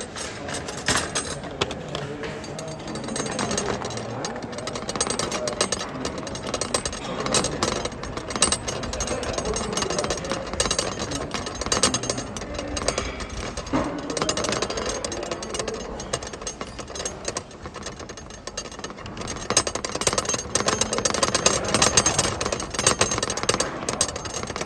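Rapid, continuous rattling and clatter of metal cutlery, a glass and a plate shifting on a plastic cafeteria tray as it is carried, mixed with handling noise on the phone.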